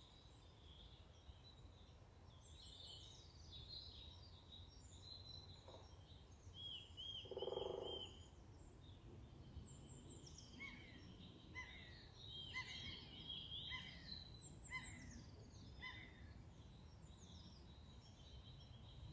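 Faint songbirds singing and calling in woodland: repeated high chirps and short trills over a low, steady rumble, with one louder, lower-pitched call about seven seconds in.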